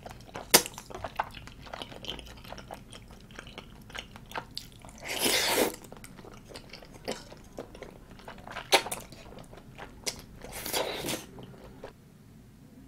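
Close-miked chewing of tteokbokki with its chewy rice cakes, fish cakes and glass noodles: wet mouth sounds with a few sharp clicks, and two longer, louder slurps about five and eleven seconds in.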